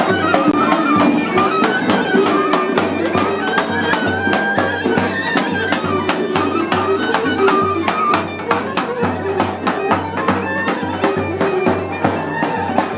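Live folk music from marching musicians: a wind instrument playing the melody over a steady beat on a large drum.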